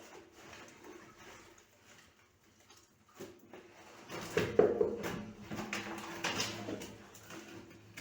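Irregular scraping and knocking of hand tools during well-seam repair, starting about three seconds in, with the loudest knock about a second and a half later.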